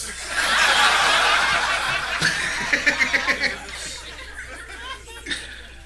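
Audience laughing in response to a roast joke, loud at once and dying away over about four seconds.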